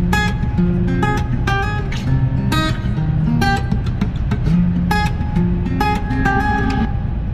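Background music of a strummed acoustic guitar, chords struck a few times a second, over a steady low rumble; the guitar stops shortly before the end.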